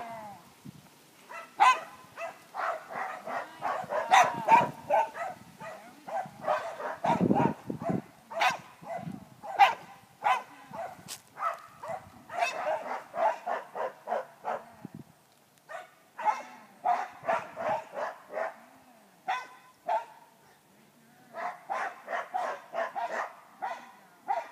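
A dog barking repeatedly in quick runs of barks, with short pauses between the runs.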